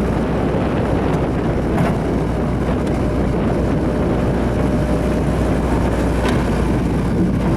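Gehl 5625 skid steer's engine running steadily, with a couple of faint ticks.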